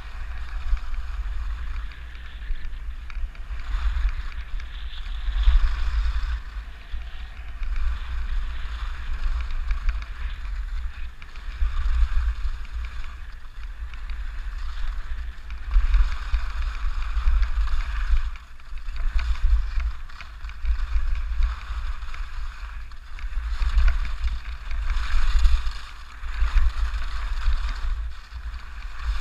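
Skis hissing and scraping over snow through a run of turns, swelling every few seconds, over a low wind rumble on the microphone.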